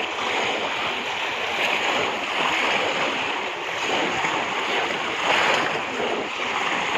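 Steady sloshing and splashing of pond water as many people wade through it and plunge bamboo fish traps into the shallows.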